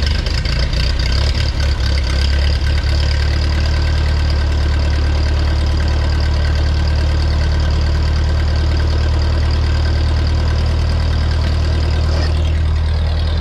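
Ford 8N tractor's four-cylinder flathead gasoline engine idling just after a cold start. It runs a little unevenly for the first couple of seconds, then settles into a steady idle.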